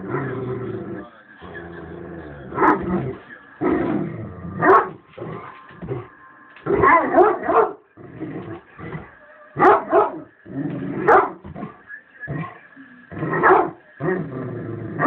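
Great Dane barking repeatedly: about a dozen loud barks, unevenly spaced, some in quick pairs.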